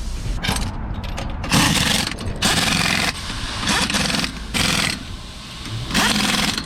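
Pneumatic impact wrench firing in about six short bursts, each about half a second long, as lug nuts are run onto a wheel.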